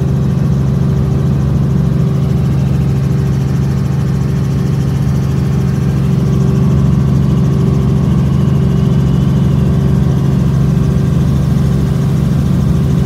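Helicopter in flight heard from inside the cabin: a loud, steady drone of engine and rotor, with a strong low hum and a fainter higher tone above it.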